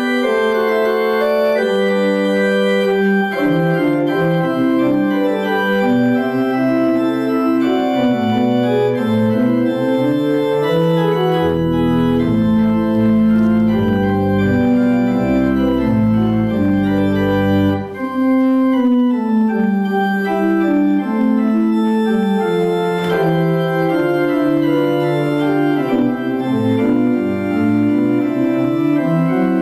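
Organ playing a slow piece of held, chord-like notes in several moving voices, with deep pedal bass notes joining for several seconds near the middle. It is the postlude that closes the service.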